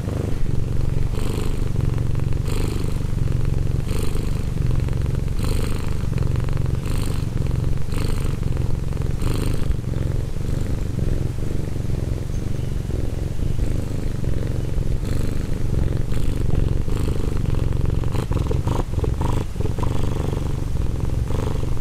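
Domestic cat purring steadily. The purr swells in a regular cycle about every second and a half.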